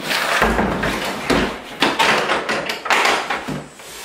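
Hard plastic Milwaukee M18 Fuel tool case being handled on a countertop: shifted, set down and its lid opened, with a series of knocks, taps and plastic clatter.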